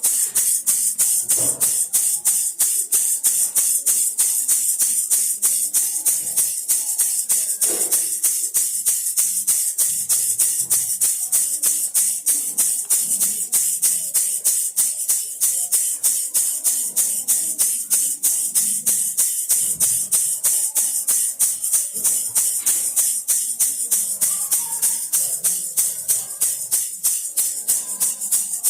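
Baby rattle shaken over and over in a fast, even rhythm, each shake a bright beady hiss.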